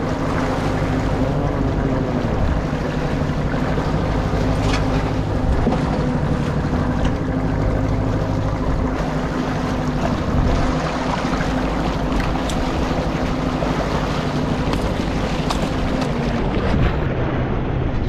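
Fishing boat's engine running with a steady low hum, with water rushing along the hull and wind buffeting the microphone.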